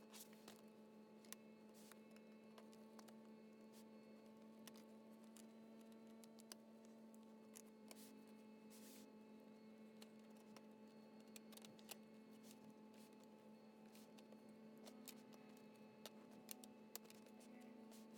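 Near silence: a faint steady electrical hum, with scattered faint clicks and ticks.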